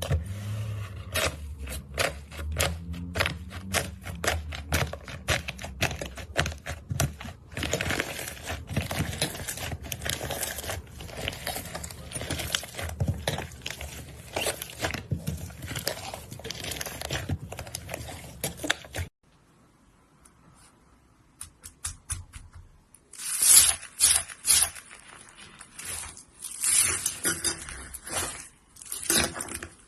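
Slime being squeezed and worked by hand, giving rapid sticky clicks and pops. The sound cuts off suddenly about two-thirds of the way through, then resumes a few seconds later as louder, crisper crackling.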